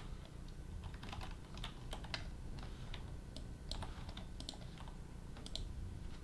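Computer keyboard keys and mouse buttons clicking irregularly as hotkeys and menus are worked, over a low background hum.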